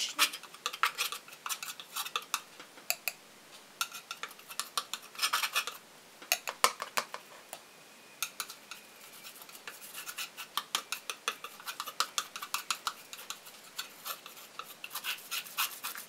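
Small metal palette knife dabbing and dragging thick white acrylic paint onto a stretched canvas: a run of quick, irregular taps with a few short scrapes.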